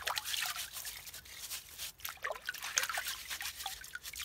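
A stiff-bristled scrub brush scrubbing a muddy horseradish root in a tub of water, in quick, uneven strokes, with water splashing and dripping off the root.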